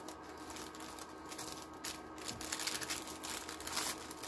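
Plastic packaging crinkling and rustling as it is handled, in irregular scattered crackles that get a little louder about halfway through.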